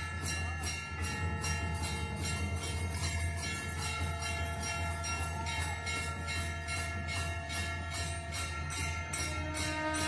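Brass temple bells ringing, struck rapidly about three times a second, so that their ringing tones overlap and hold steady over a low hum.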